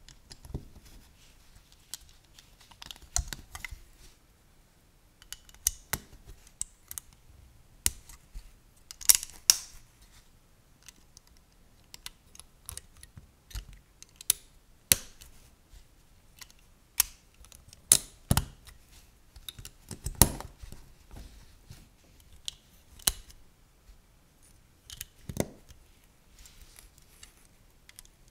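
Plastic LEGO bricks and plates being snapped onto studs and handled: irregular sharp clicks, with a few louder snaps scattered through.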